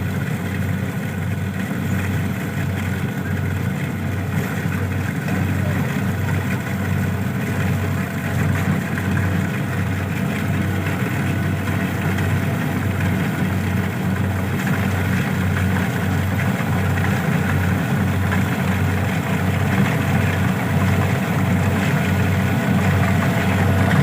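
Engine running steadily under a constant load, with a low throb that pulses about twice a second.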